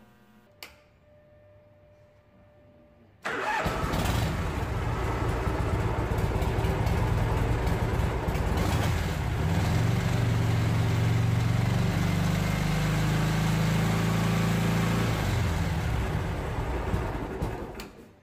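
A motorcycle engine starts suddenly about three seconds in and runs, is revved up and held higher from about the middle for several seconds, then drops back and dies away near the end. It is running during a battery-voltage check that stays near 12 volts, a sign the charging system is not charging.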